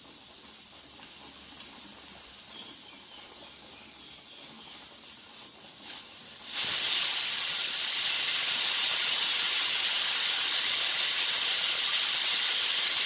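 Hawkins Classic aluminium pressure cooker coming up to pressure: a few faint sputters, then about six seconds in the weight valve lifts and steam escapes in a sudden, loud, steady hiss. This is the cooker's whistle, the sign it has reached full pressure and the cue to turn the flame down to low.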